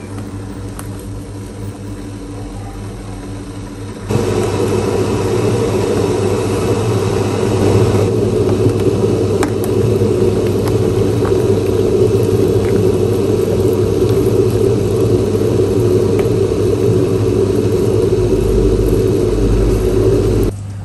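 A loud, steady mechanical whir over a low hum. It jumps sharply louder about four seconds in and cuts off abruptly just before the end.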